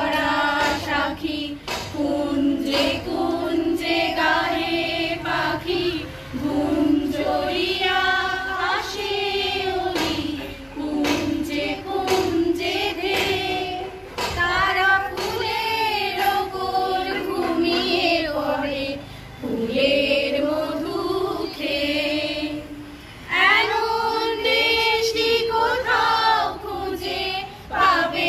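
A small group of adult voices, mostly women's, singing a song together in unison, in long phrases with held, wavering notes and short pauses between lines.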